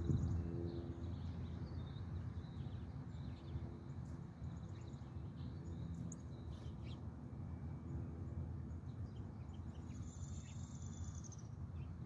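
Faint songbird chirps and calls over a steady low outdoor rumble, with one longer, high, slightly warbling call about ten seconds in.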